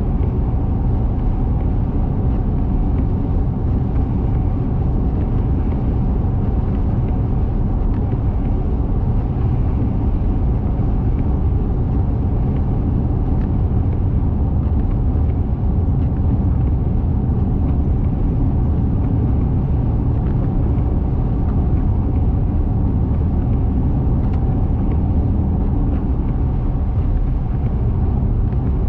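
Steady road noise of a car driving on the interstate: an even, unbroken low rumble of tyres and engine.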